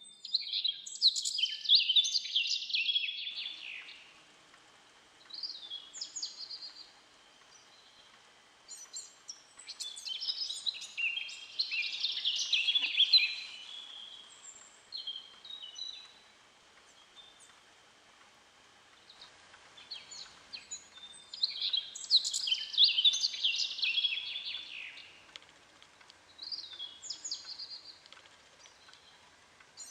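Songbird singing: three long warbling song phrases about ten seconds apart, with shorter chirps in between.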